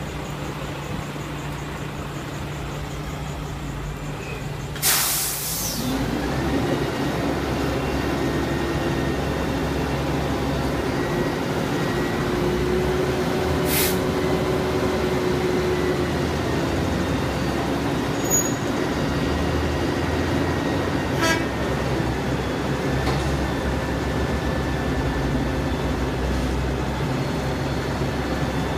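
Roll-off truck's diesel engine idling, then a short loud hiss of released air about five seconds in, after which the engine speeds up and runs steadily under load with a steady whine while the hoist drags a full container up onto the truck bed. A few sharp metallic knocks come from the container and rails along the way.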